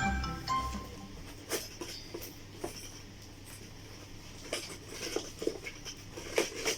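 Light, scattered clicks and rustles of a parcel being unpacked by hand, with handling of cardboard and plastic packaging. There are a handful of sharper ticks, most of them in the second half.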